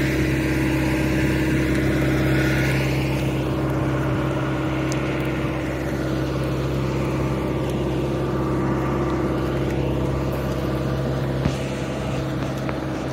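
Steady engine drone with a constant low hum and slowly shifting higher tones, from the aircraft and ground machinery on an airport apron.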